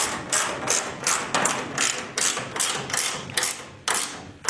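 Ratcheting gear wrench clicking in quick back-and-forth strokes, about three a second, tightening stainless steel bolts with lock nuts.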